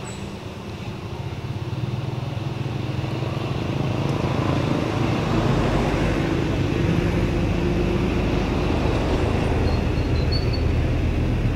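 A steady engine drone with a low hum, growing louder over the first few seconds and then holding steady.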